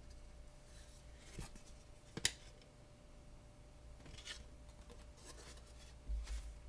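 Trading cards being handled: soft rustling and sliding of cards with a few light clicks, the sharpest about two seconds in.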